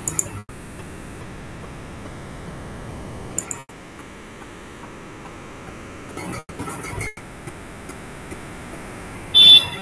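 Steady hiss of an online video call's audio line, broken by a few short, sharp noises; the loudest is a brief burst near the end.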